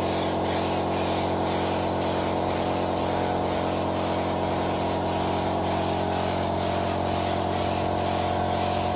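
Compressed-air spray gun hissing steadily as it sprays finish, over the steady hum of the air compressor that feeds it.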